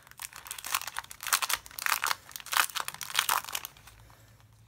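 Clear cellophane sleeve crinkling in a burst of irregular crackles as a sheet of stickers is slid out of it by hand. The crinkling dies away about three and a half seconds in.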